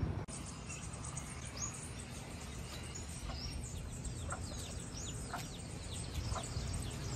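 Chicks peeping: many short, high, falling chirps in quick succession over a low background hiss.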